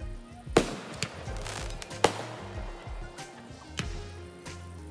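Fireworks going off: two sharp bangs, about half a second and two seconds in, with a few fainter cracks between, each trailing off briefly. Music with a steady bass line plays under them.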